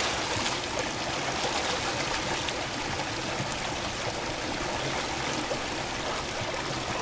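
Shallow mountain river rushing steadily over boulders, with a few light splashes as a bather wades in and lies back in the cold water.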